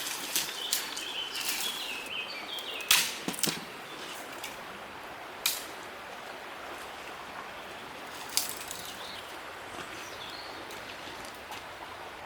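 A few sharp cracks or knocks, several seconds apart, the loudest about three seconds in, over a steady outdoor background hiss. A bird sings briefly near the start.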